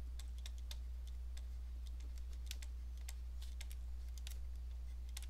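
Stylus tapping on a tablet screen while handwriting, heard as a string of light, irregular clicks over a steady low hum.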